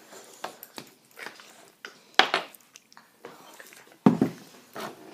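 A plastic sippy cup knocking and clattering against a plastic high-chair tray in a few sharp knocks, with the loudest, heaviest thump about four seconds in.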